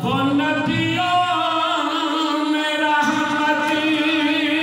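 A man chanting a line in a drawn-out melodic style, holding long notes that waver near the end.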